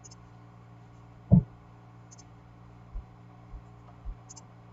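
Computer mouse clicking a few times against a steady low electrical hum, with a dull thump about a second and a half in and a few softer knocks after it.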